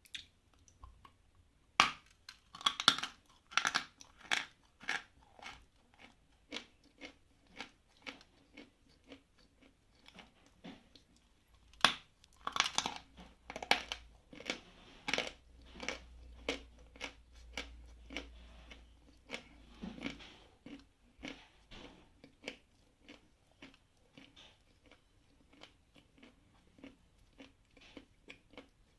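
A person biting into a piece of medium-density Khrapovsky chalk and chewing it close to the microphone, with crisp crunches. Sharp bites come about two seconds in and again about twelve seconds in, each followed by a steady chewing rhythm of about three crunches every two seconds that grows fainter toward the end.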